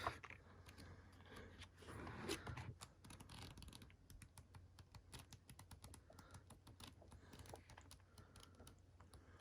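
Pages of a paper diary being flipped quickly, a run of soft, faint paper flicks, several a second.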